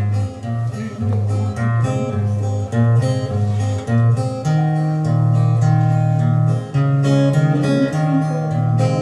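Acoustic guitar playing a song's introduction: picked notes over a bass line that moves every half second or so.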